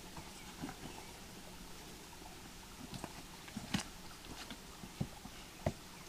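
Footsteps and scrambling on the stones of a rocky creek bed: irregular clicks and knocks of shoes on rock, a few louder ones in the second half, over a faint steady hiss.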